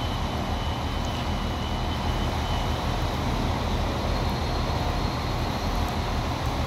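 Irish Rail InterCity Railcar diesel multiple unit running slowly into the platform: a steady low engine rumble, with a faint high whine for the first three seconds or so.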